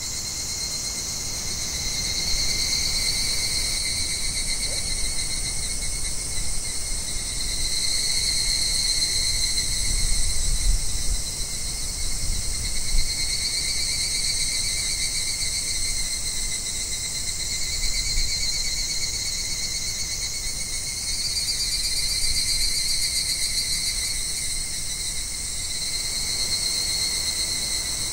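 A steady chorus of summer insects trilling high, swelling and fading every few seconds, over a low outdoor rumble that rises briefly in the middle.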